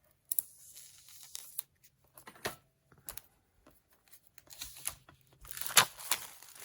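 The wrapper of a pack of craft paper being torn open and crinkled by hand: scattered crackles and rustling that get busier and louder near the end.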